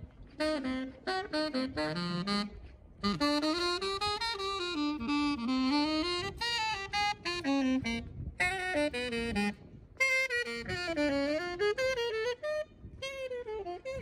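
Solo saxophone playing a slow, gliding melody, pausing briefly between phrases.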